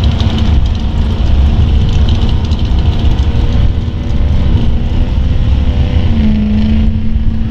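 Street diesel pickup truck's turbo-diesel engine running hard under full load while pulling the sled, a loud steady drone. Its pitch steps down a little about six seconds in.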